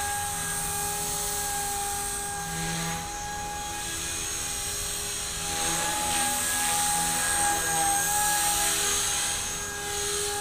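Blade 180 CFX micro RC helicopter with Lynx main and tail rotor blades in flight, giving a steady high whine from its electric motor and rotors. From about five seconds in it grows louder and the pitch wavers a little, then settles.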